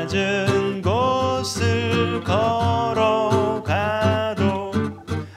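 A man singing a slow song in Korean to his own strummed acoustic guitar, holding long notes that slide up into pitch.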